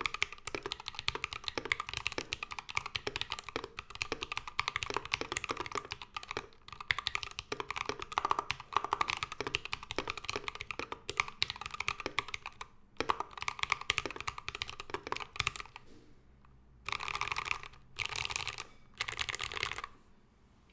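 Mechanical keyboard with Tecsee Ice Grape linear switches (UHMWPE stems), a brass plate and cherry-profile keycaps, typed on fast and continuously. The typing stops about three-quarters of the way through, followed by three short bursts of rapid keystrokes about a second apart.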